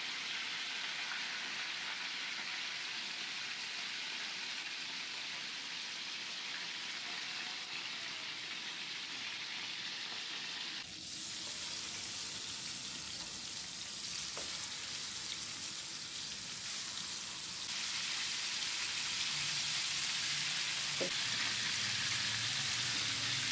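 Fish pieces shallow-frying in hot oil in a pan, a steady sizzle that gets louder about eleven seconds in, with a couple of faint clicks.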